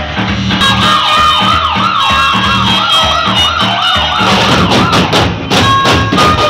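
Loud procession drum band music with a steady drum beat. A fast warbling siren-like wail, about four swings a second, rides over it from near the start to about four seconds in, then stops, and sharper drum strikes follow.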